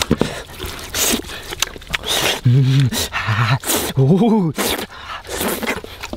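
A man's low wordless vocal sounds: two short hums or groans, about two and a half and four seconds in. Scattered clicks and rustles of handling run alongside.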